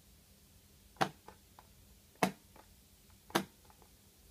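Four sharp plastic clicks about a second apart, each followed by a fainter click, from an N-gauge model train set being handled and set on its track.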